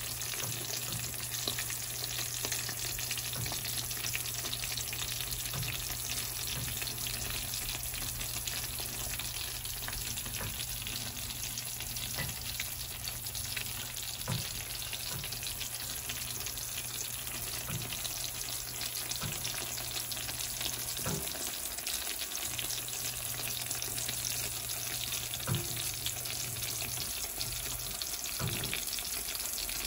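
Freshly baked chicken Alfredo stuffed shells sizzling in a glass baking dish: a steady crackling sizzle of bubbling cream sauce and cheese, with a few small pops, over a low steady hum.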